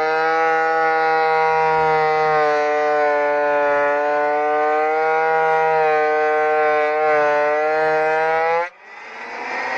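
Delta 22-540 12-inch portable planer running with a steady high whine, its pitch sagging slightly at times as it takes a light pass. The whine cuts off suddenly near the end, and a rougher, noisier sound with a faint rising tone builds up in its place.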